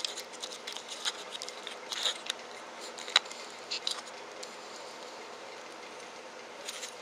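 Small metallic clicks and taps from handling a BB gun's metal two-cartridge CO2 magazine and turning its piercing key, scattered through the first few seconds with the sharpest click about three seconds in. A steady faint hum lies underneath, and the cartridge pierces without any noise of its own.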